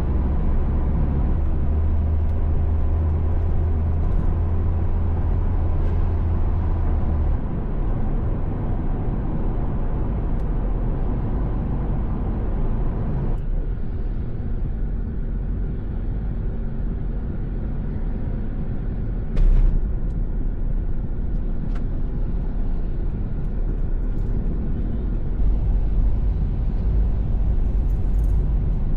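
Steady car road noise: low rumble and tyre hiss, with a brief louder knock or bump about two-thirds of the way through.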